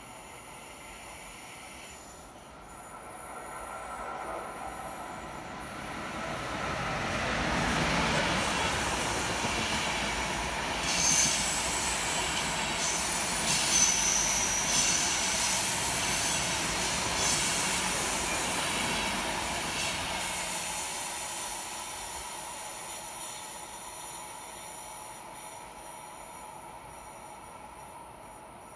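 A train passing on the line, growing louder over the first several seconds and then slowly fading. Its wheels squeal in short high tones about halfway through.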